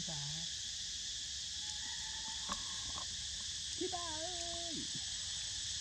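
Steady, high-pitched chorus of insects such as crickets. A short voice-like call falls in pitch right at the start, and a brief held hum comes about four seconds in, with a couple of faint clicks between them.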